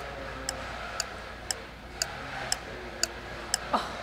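Clock ticking steadily, two ticks a second, over a faint background murmur, with a brief rising swoop near the end.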